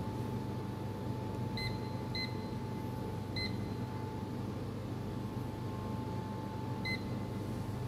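Short electronic beeps from a peel tester's touchscreen control panel, four in all: two close together, a third about a second later, and a last one near the end. They sound as its buttons are pressed, over a steady low machine hum.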